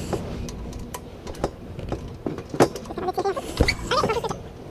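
Scattered sharp clicks and knocks of tools and small parts being handled during pressure-switch wiring work, over a low steady hum.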